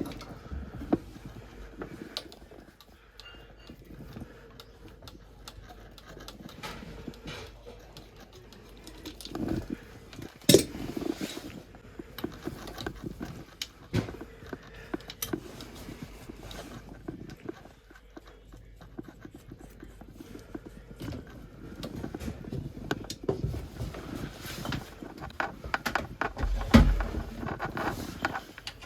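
Scattered clicks, knocks and clatter of tools and parts being handled during toilet repair work, with a few sharper knocks about ten, fourteen and twenty-seven seconds in.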